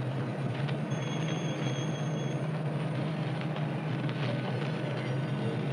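Steady background hiss and low hum of an old live recording, with a few faint clicks, in a pause between phrases of a Quran recitation.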